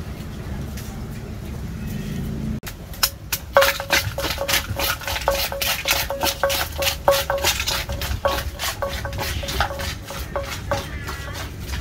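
A steady low hum, then about two and a half seconds in a quick run of clinks and knocks, several a second, many with a short ringing note: utensils striking and scraping containers as papaya salad is mixed.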